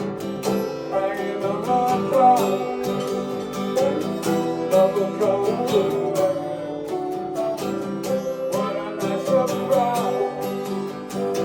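Acoustic guitar strummed in a steady rhythm, with a wavering melody line over the chords.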